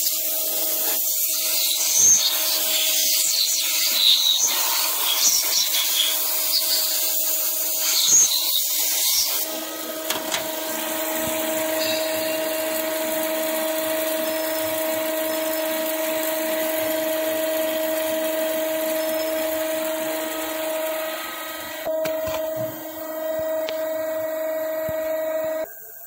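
Surface grinder skimming the face of a worn hydraulic gear pump housing: the wheel grinds with a hiss over a steady motor hum for about nine seconds, then the hiss stops and the spindle runs on alone with a steady whine. It cuts off suddenly near the end.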